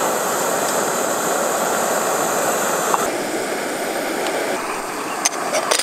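Portable gas canister stove burning at full flame with a steady, loud hiss while heating a kettle. A few sharp clicks come near the end.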